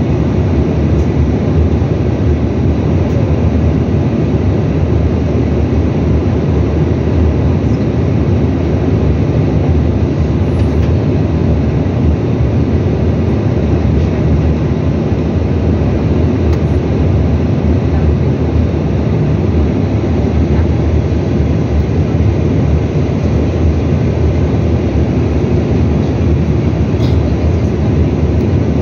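Steady cabin roar inside a Bombardier CRJ900 airliner in descent: airflow over the fuselage and its two rear-mounted turbofan engines, a deep, even rumble with a faint steady whine on top.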